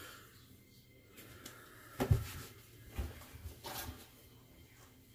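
A few short scraping strokes of a Gold Monkey 777 straight razor through lathered stubble, with a soft knock about two seconds in.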